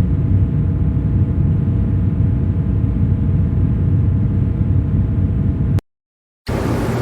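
Dark ambient atmosphere sound effect: a steady low rumble with faint held tones above it, cutting off suddenly near the end. After a moment of silence, a brighter hiss-like noise begins.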